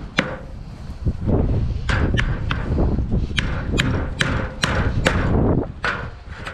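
Hand hammer striking a steel chisel held against brickwork, about ten sharp metallic blows, most of them coming quickly in the second half, chiselling out an old brick soldier course.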